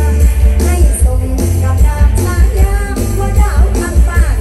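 Isan mor lam band music played loud through a large sound system, with a heavy, steady bass beat under a wavering melody line.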